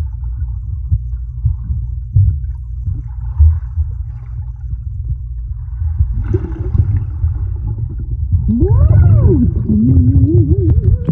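Muffled rumble of pool water on an underwater camera microphone. From about eight and a half seconds in, a person's voice is heard underwater: a wavering hum that swoops up and down in pitch.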